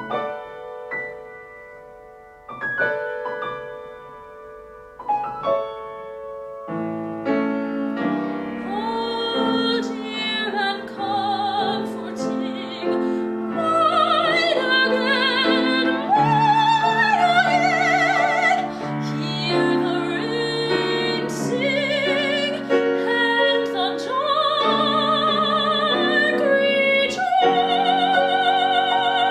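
Classical art song for voice and piano: sparse piano chords at first, then a fuller accompaniment, and a young woman's voice joins about a third of the way in, singing a melody with vibrato in a classical style.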